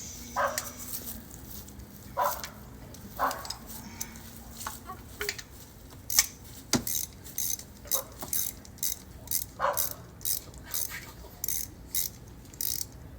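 Hand ratchet with a 16 mm spark plug socket clicking in short irregular runs, mostly in the second half, as the spark plugs are backed out of the engine.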